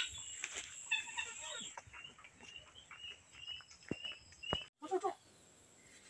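Chickens calling: a run of short, high chirps and clucks, settling into about three chirps a second before breaking off suddenly near the end.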